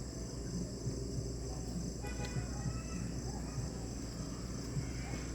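Steady pulsing chorus of crickets, with a low, even rumble underneath and a brief high call about two seconds in.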